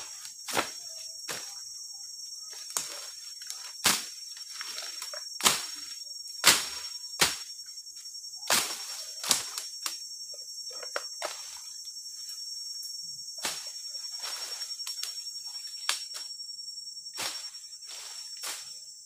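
Machete slashing through forest undergrowth: a dozen or so sharp chops at irregular intervals, with leaves and stems rustling between them, over a steady high drone of insects.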